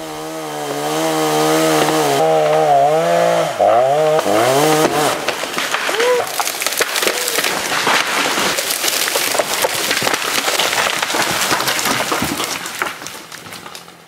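Chainsaw cutting through a hung-up pine trunk, the engine note sagging under load partway through the cut. About five seconds in, the trunk gives way and the top crashes down through the pine branches, with several seconds of cracking and snapping wood that die away near the end.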